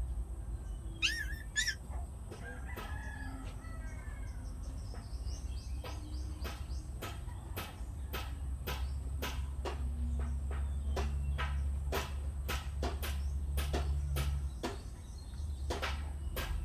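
A rooster crowing in the background, with two short high squeaky calls about a second in. From about five seconds in there is a steady run of sharp clicks and taps over a low hum.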